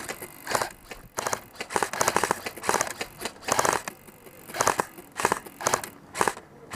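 Airsoft guns firing short full-auto bursts, each a rapid run of clicks, over a dozen bursts in quick succession.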